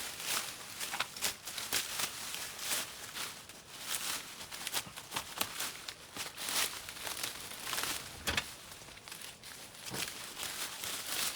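Overgrown vines and brush being pulled and torn away by hand, with irregular crackling and rustling of leaves and stems.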